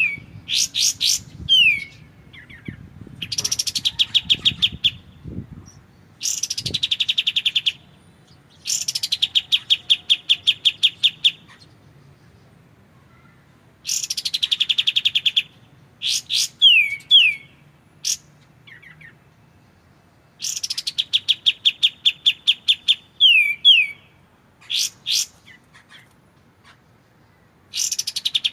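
Kapas tembak song: long, fast rattling trills of rapidly repeated notes that slide down from very high to a level high pitch, several series a few seconds apart, with short down-slurred whistled notes between them.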